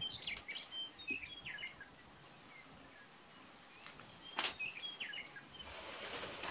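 Grouse calling on a lek: short high chirping notes in two clusters, with a sharp click just over four seconds in and a rising rustling noise near the end.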